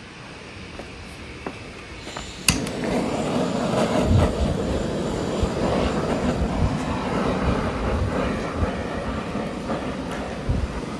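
A gas blowtorch lit with a sharp click about two and a half seconds in, then burning with a steady rushing flame as it singes fine hairs off wild boar meat.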